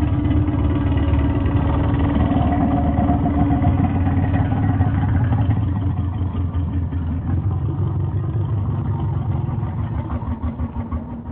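Sea animal chattering slowed down: a dense, low rumbling sound with some steady tones held through it, thinning and getting quieter over the last few seconds.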